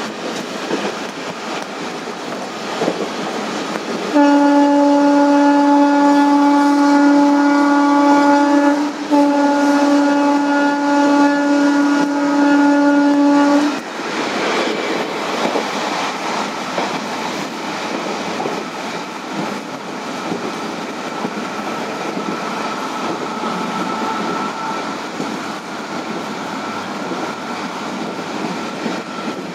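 Passenger train coaches running along the track, with the WAP4 electric locomotive's horn sounding about four seconds in: a long, loud, steady blast of nearly ten seconds, broken briefly about halfway. After it stops, the steady running noise of the train carries on.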